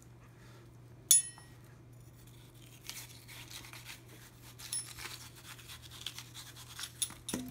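A kitchen knife scraping and cutting diced watermelon chunks loose from the rind, a run of small scratchy ticks in the second half. About a second in, a single sharp ringing clink on the stainless steel bowl.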